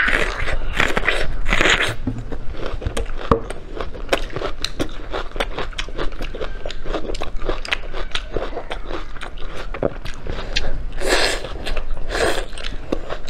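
Close-miked eating: crunching bites into whole raw red onion at the start, then chewing and gnawing on braised pork ribs, with a dense run of small mouth clicks and another loud stretch of crunching near the end.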